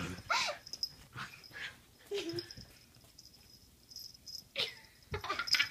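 Two dachshunds wrestling in play, giving short dog vocalizations in a few spells, with a quiet stretch about halfway through.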